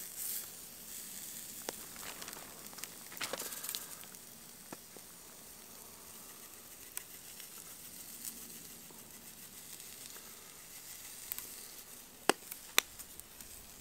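Raw steak sizzling on a wire grill basket over campfire coals, a steady soft hiss with a few sharp pops near the end.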